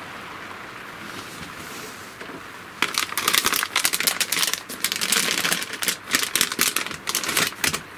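Clear plastic parts bag crinkling in quick irregular bursts as it is handled and opened, starting about three seconds in after a steady low hiss.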